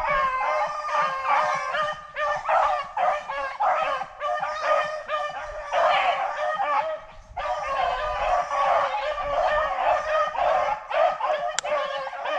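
A pack of beagles baying together on a freshly jumped rabbit's trail, several voices overlapping continuously, with a short lull about seven seconds in. A single sharp click sounds near the end.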